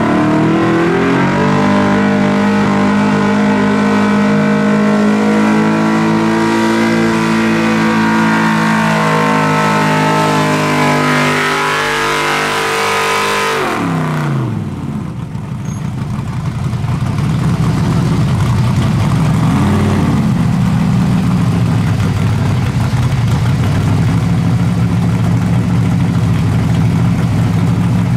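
Enhanced gas 4WD pulling truck engine running flat out under load, its pitch sagging slowly as it pulls. About halfway through the revs drop sharply as the run ends, and a lower, rougher engine rumble carries on afterwards.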